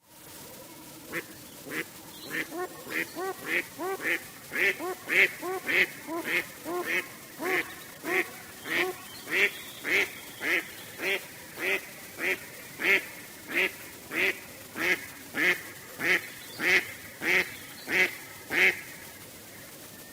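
Duck quacking: a steady run of short quacks, a little under two a second, starting about a second in and stopping shortly before the end.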